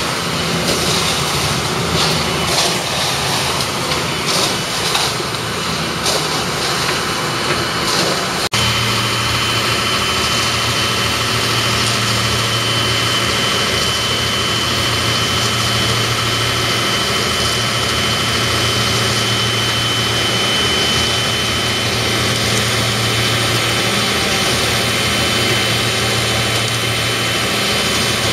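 Concrete mixer running, with irregular clattering and knocks for the first eight seconds or so. After an abrupt cut comes a steady engine drone with a constant high whine.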